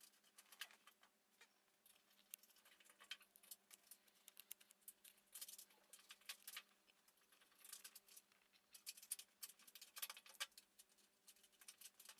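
Faint, irregular clicks and scratches of hands working a Dobsonian telescope's tension knob into the side bearing of the tube, turning and positioning it by hand.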